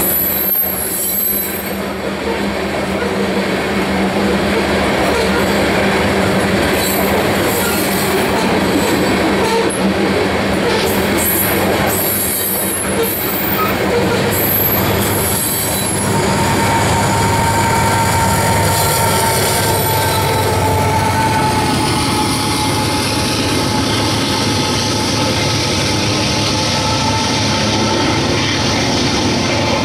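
Loaded grain covered hopper cars rolling past on jointed rail, with steady wheel rumble, clicks and a wheel squeal tone that holds for several seconds in the middle. In the second half a steadier, heavier running sound takes over as the train's rear distributed-power GE AC4400CW diesel locomotive passes.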